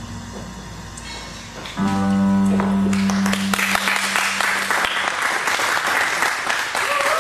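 A live band's closing chord starts about two seconds in and is held for about three seconds, then fades under audience applause that rises and carries on to the end.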